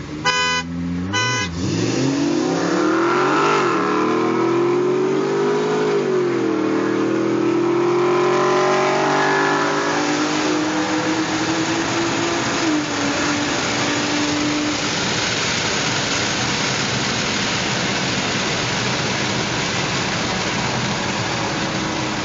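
Two short car-horn blasts as a start signal, then cars accelerating hard from a standing start: the engine note climbs and drops back at each upshift, about three times, before settling into steady road and wind noise at speed.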